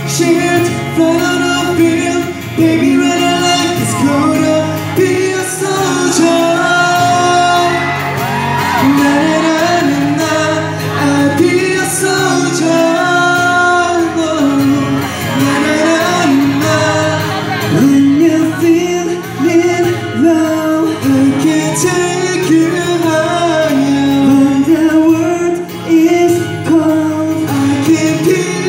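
Live acoustic performance: two acoustic guitars strummed beneath sung vocals, carrying the reverberation of a large hall.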